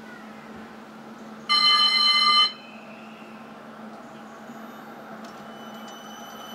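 West Midlands Metro CAF Urbos 3 tram sounding a single loud electronic warning tone lasting about a second, about a second and a half in, over the steady low hum of the tram standing at the stop. Faint high whining tones start near the end.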